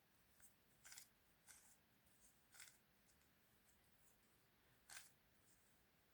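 Faint, short clicks of plastic 3×3 puzzle-cube pieces being handled and fitted together, about six of them at uneven intervals, the loudest about five seconds in.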